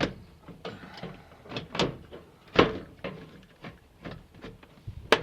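A handful of separate knocks and clicks as a Toyota Echo's headlight assembly is pushed and fitted back into place, the loudest about two and a half seconds in and a sharp click just before the end.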